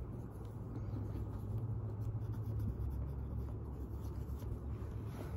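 Cotton swab scrubbing on the tarnished brass hardware of a leather handbag: a soft, scratchy rubbing over a low steady rumble.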